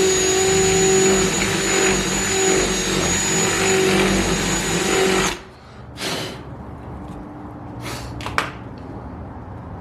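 Power drill running steadily at one speed while boring a mounting hole for the wickerbill, stopping suddenly about five seconds in. A few short knocks and scrapes of handling follow.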